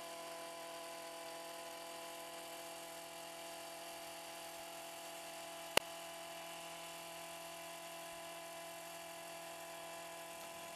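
Small gas engine of a string-trimmer powerhead running steadily at high speed, driving a toothed edger blade cutting along the edge of sod. A single sharp click comes about halfway through.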